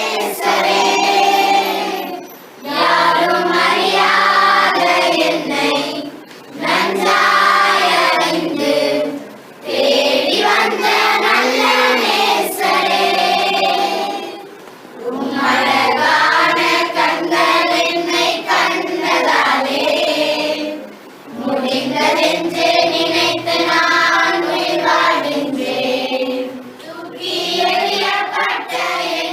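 A group of children singing together in chorus, in sung phrases broken by short pauses every few seconds.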